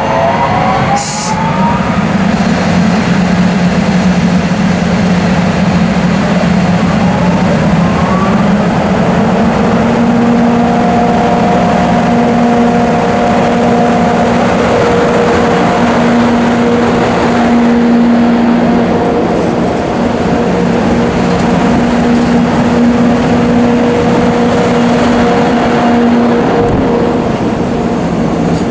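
A double-headed pair of JR EF64 1000-series electric locomotives pulling a freight train away from a stop. Rising whines come in the first seconds and again around six to eight seconds, with a sharp click about a second in. From about nine seconds on, steady whining tones run under a loud mechanical din, and the train gathers way as the wagons begin to roll past.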